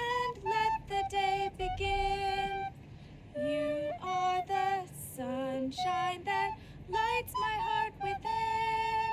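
A high singing voice carries a slow tune of held notes, with a short pause about three seconds in.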